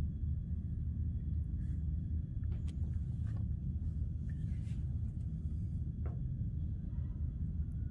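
Steady low background rumble, with a few faint light clicks and rustles of wires being handled during soldering.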